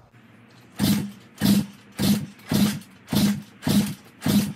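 Piranha 125cc four-stroke pit bike engine being kicked over repeatedly with the spark plug out and a compression gauge in its place, during a compression test. Each kick gives a short, loud burst, about seven of them spaced just over half a second apart, starting about a second in.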